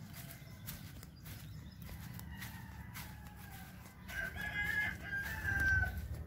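A rooster crowing, a pitched call of about two seconds starting about four seconds in, over a low rumble and scattered clicks.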